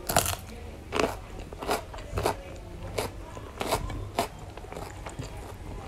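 Close-up crunching of raw cucumber being bitten and chewed: seven crisp crunches, each under a second apart, then quieter chewing near the end.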